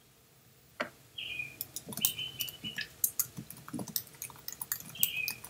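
Computer keyboard typing: irregular quick key clicks, starting about a second in. A few short high-pitched tones sound at the same time, from a source that cannot be identified.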